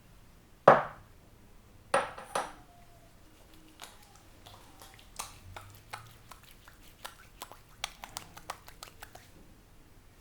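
Percussive hand sounds of an Indian barber's head massage: one loud sharp slap or crack, two more about a second later, then a run of lighter irregular taps and clicks.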